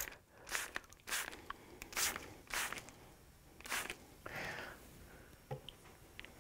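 Hand-pumped spray bottle spritzing water in short quick squirts, about five in the first four seconds, then a softer sound and a small click near the end.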